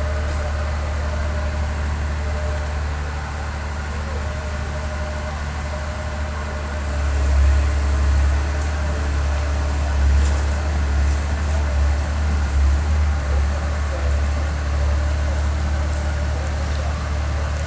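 Komatsu excavator's diesel engine running with a steady low drone. It grows louder and surges unevenly from about seven seconds in.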